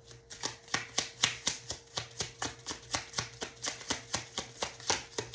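A deck of tarot cards being shuffled by hand: a quick, even run of card taps and flicks, about five a second.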